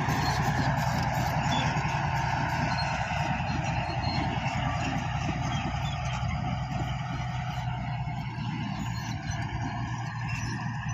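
Komatsu D155A bulldozer's diesel engine running under steady load, slowly getting a little quieter.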